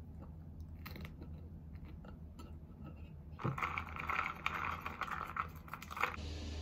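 A fork scraping and tapping on a ceramic plate with faint chewing, then, about three and a half seconds in, a drink sucked up through a straw from a tumbler, a crackly slurping run that stops abruptly near the end.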